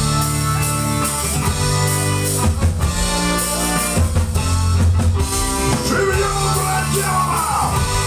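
Rock band playing: electric guitar over bass and drum kit, with a wavering melodic line about two-thirds of the way in.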